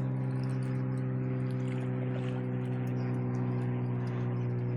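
Boat motor running steadily at a slow trolling speed, a constant low hum with no change in pitch.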